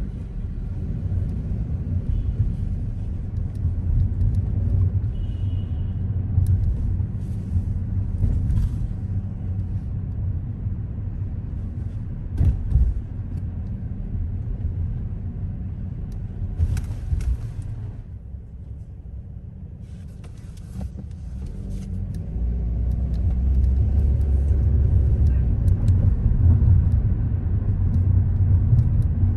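A car driving on city streets: a steady low rumble of road and engine noise. It eases off for a few seconds past the middle, then builds again. A few brief high ticks are scattered through it.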